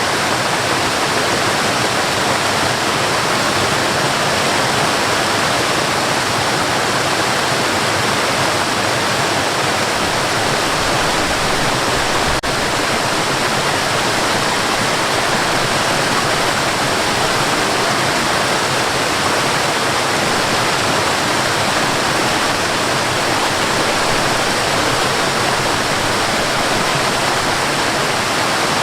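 Waterfall: water falling and rushing in a dense, steady roar with no change.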